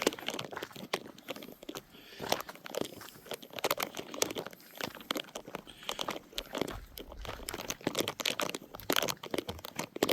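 Close, irregular crunching and crackling rustles, many small sharp crackles following one another without a steady rhythm.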